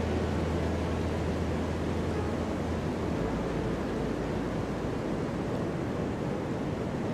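Ocean surf making a steady rushing noise. A low steady hum underneath stops about three seconds in.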